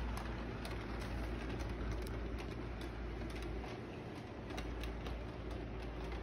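Model train running on its track: a steady rumble from the locomotive's motor and wheels, with irregular light clicks.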